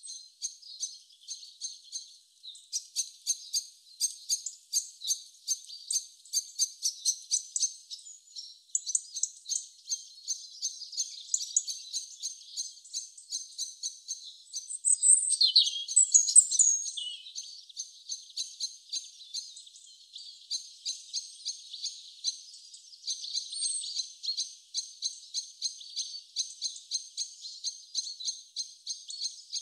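Small birds chirping and singing in quick, high, repeated notes, with a louder run of sweeping whistled notes about halfway through.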